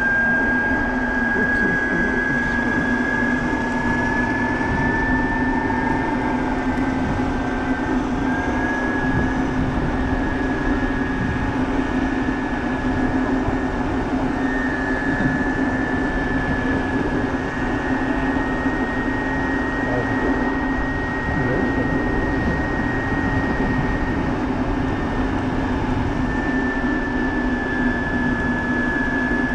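Electric motorcycle riding along a street at a steady pace: a high motor whine that drifts slightly in pitch as the speed changes, over a steady lower hum and a rumble of wind and road noise.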